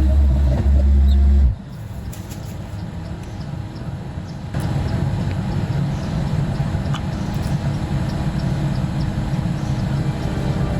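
An engine running steadily, after a loud low hum that cuts off suddenly about a second and a half in; the engine gets a little louder about four seconds in.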